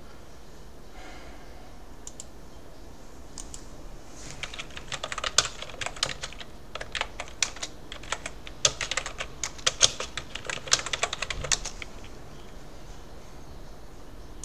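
Typing on a computer keyboard: a couple of lone key clicks, then a quick, irregular run of keystrokes lasting about eight seconds from about four seconds in.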